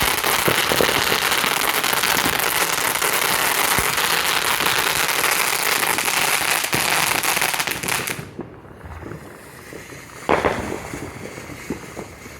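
Consumer firework fountain burning with a steady hiss and crackle, cutting off suddenly about eight seconds in. A single sharp pop follows about two seconds later.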